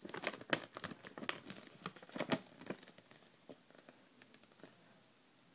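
Glossy toy packaging and a folded paper leaflet crinkling and rustling as they are handled and unfolded, with a run of sharp crackles over the first three seconds that then dies away.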